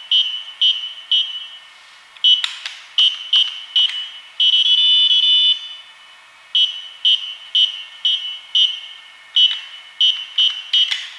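Electronic Simon Says game's buzzer sounding a series of short high beeps as it plays its sequence, with one longer beep about four to five seconds in. Sharp clicks of the arcade push buttons being pressed come in between, several around two to four seconds in and again near the end.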